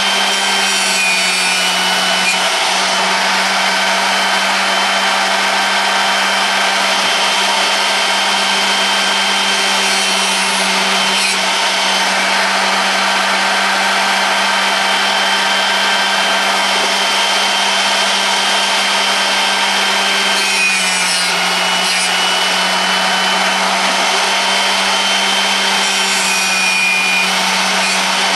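Bench drill-bit sharpener (drill pointer) running with a steady low hum and whine while its grinding wheel grinds the cutting edge of a large twist drill bit, a continuous rasping hiss. The hiss shifts a little now and then as the bit is moved on the wheel.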